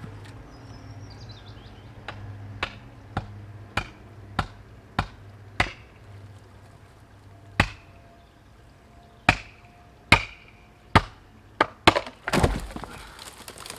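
A steel axe striking a felling wedge into the cut in a large section of sycamore: about a dozen sharp, unevenly spaced blows, some with a short ring. Near the end the heavy trunk section tips over and crashes down with a long, loud crunching thud.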